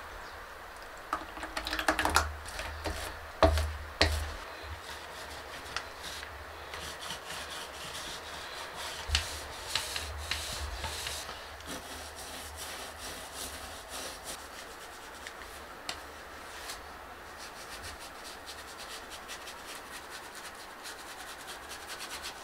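Paintbrush strokes scratching over bare wooden boards, with a few sharp knocks near the start from handling the paint can and roller tray.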